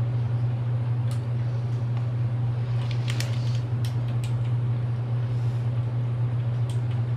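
A steady low hum throughout, with a few faint ticks and scratches of a pen writing on paper.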